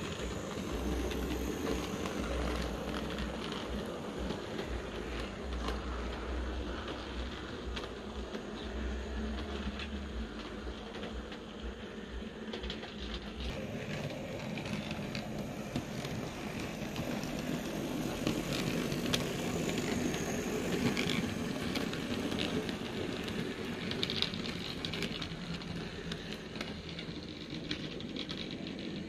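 00 gauge model train running on the layout: a steady whirr with frequent small clicks as the wheels run over rail joints and points. A low hum in the first half stops about halfway.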